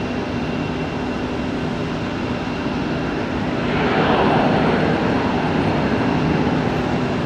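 Jet airliner engines running at the airport: a steady hum with a low tone, swelling louder with a rushing noise about four seconds in.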